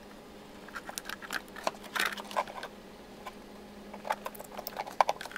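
Plastic wiring-harness connectors and wires being handled and plugged together: scattered light clicks, taps and rubbing, busiest about two seconds in and again near the end.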